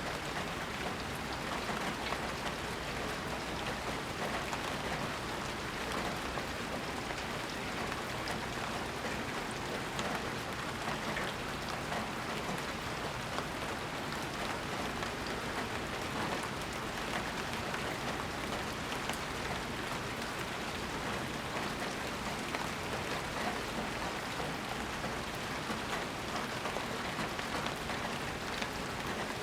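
Steady rain falling and pattering on surfaces, an even hiss full of fine drop ticks, with no thunder.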